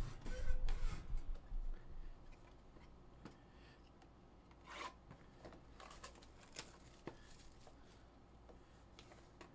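A cardboard trading-card hobby box being handled and slit open with a small blade: a few low thuds and rustles in the first second and a half, then faint, scattered scrapes and ticks as the blade cuts along the wrap.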